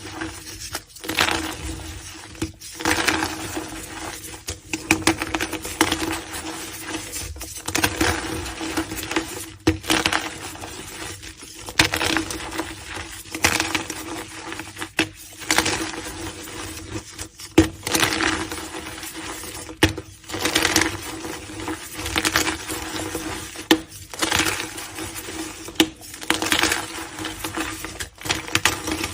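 Blocks of gym chalk crushed by hand, crunching and crumbling in repeated squeezes about every one to two seconds. A faint steady hum runs underneath.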